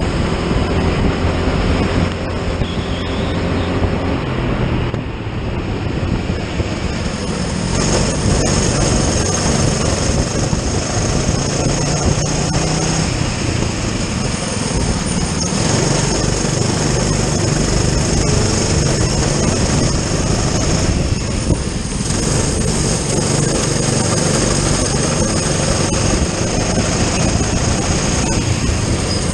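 Racing kart engine heard from on board at race speed, its note dipping briefly about five seconds in and again about twenty-one seconds in before building again, under a continuous rushing noise.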